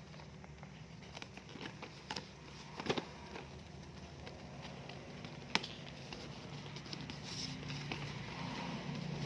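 Handling a hair clipper and its plastic packaging during unboxing: scattered clicks and light rustling, with sharp clicks about three seconds in and again past five and a half seconds.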